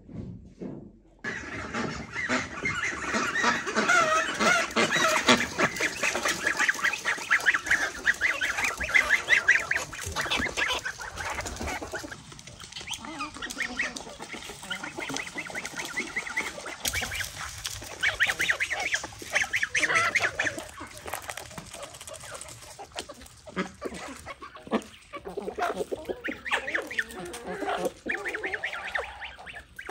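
A flock of domestic ducks quacking loudly, with chickens clucking among them, starting about a second in as many short calls overlapping.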